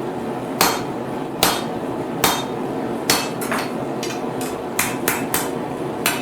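Blacksmith's hammer striking hot steel bar on the anvil to cut through it, about nine sharp blows each with a short metallic ring, roughly a second apart at first and quicker in the second half, over a steady hiss.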